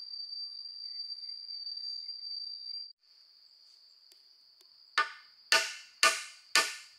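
Insects in the forest make a steady high-pitched drone that cuts off abruptly about three seconds in. Near the end, sharp ringing tool strikes begin, about two a second, like steady hammering or chopping.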